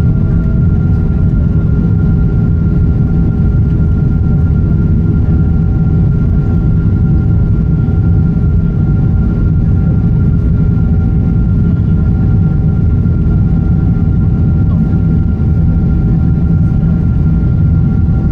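Boeing 777-200ER's twin jet engines and rushing airflow, heard from inside the cabin as the airliner climbs out after takeoff: a loud, steady, deep noise. Over it run a thin steady high tone and a fainter tone that pulses on and off about once a second.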